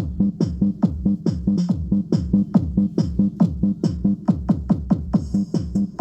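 Electronic dance music with a fast, steady drum-machine kick beat over a held bass note, played loud through the Storm 15 sound system in a sound test.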